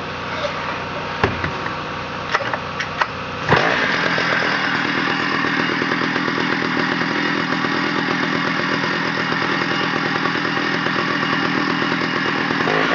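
After a few clicks, a vintage Stihl 075 chainsaw's 111 cc two-stroke engine starts about three and a half seconds in and settles into a steady, evenly pulsing run.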